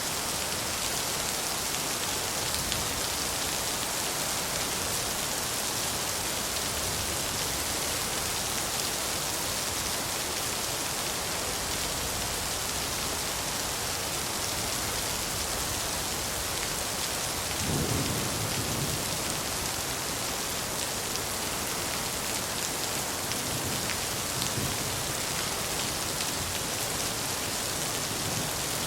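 Steady rain falling, with a low roll of thunder a little past the halfway point.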